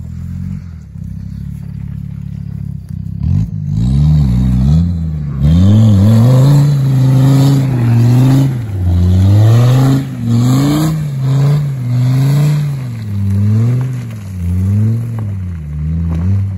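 Off-road 4x4's engine running steadily, then from about three seconds in revving up and down over and over as the vehicle works its way up a muddy track.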